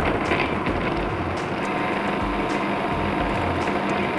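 Food processor motor running steadily, its blade churning a dry, crumbly shortbread mix of flour, cold butter, sugar and peanut butter.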